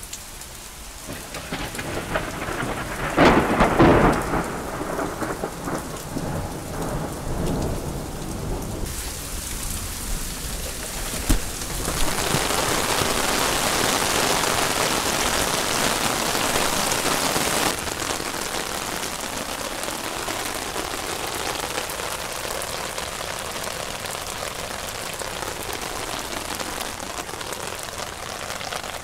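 Thunderstorm: steady heavy rain hitting pavement, with a loud rumble of thunder about three seconds in. The rain swells louder for several seconds past the middle, then settles back.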